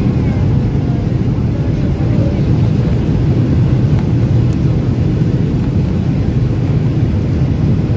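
Airliner cabin noise heard at a window seat during the descent to land: a steady, deep rumble of engines and rushing air that does not let up.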